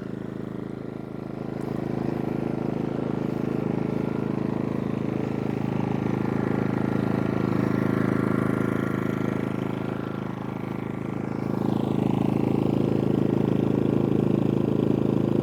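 Genmax GM3500iAED dual-fuel inverter generator running steadily with eco mode off. It gets slightly louder about two seconds in and again about twelve seconds in.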